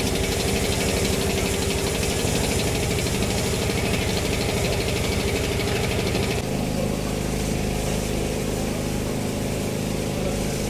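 A combustion engine running steadily at idle with a fast, even pulse; about six seconds in the sound changes abruptly to a deeper, smoother engine rumble.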